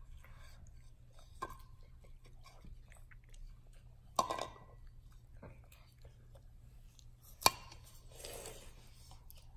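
Children biting and chewing crunchy raw apple: scattered crisp crunches, a denser crunch about four seconds in and a sharper, louder crack about three quarters of the way through.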